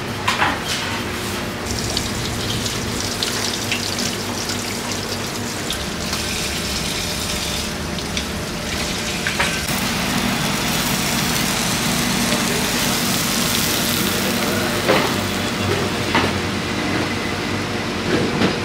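Steady rushing kitchen noise with a low hum, broken by a few sharp metal clanks of pizza pans and tongs being handled.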